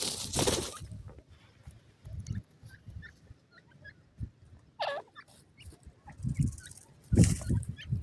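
Francolins on dry ground: a loud dusty flurry of a bird dust-bathing and flapping at the start, soft short chirps scattered throughout, one short harsh call about five seconds in, and another scuffle of flapping near the end.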